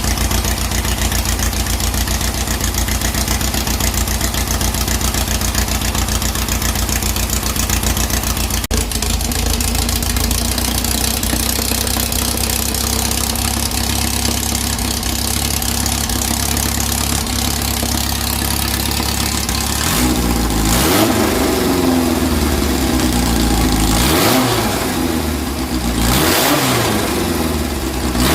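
Air-cooled 2332cc VW engine fed by dual EMPI HPMX 44 carburettors idling steadily, then revved up and down several times over the last third.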